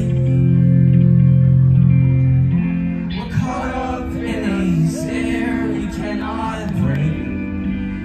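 Live rock band playing loud through a PA, heard from the crowd. Electric guitars and bass hold a chord, then a male voice starts singing about three seconds in.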